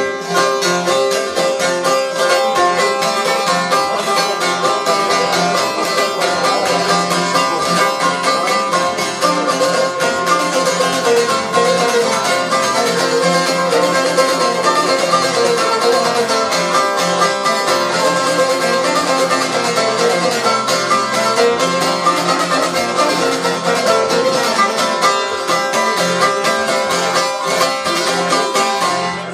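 Two long-necked plucked lutes played together in a brisk, continuous instrumental folk tune, a dense stream of picked notes without singing.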